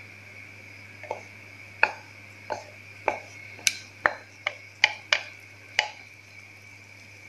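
Wooden spatula knocking and scraping against a glass bowl while gram flour is pushed out into a pan: about a dozen short, sharp taps, irregularly spaced over some five seconds.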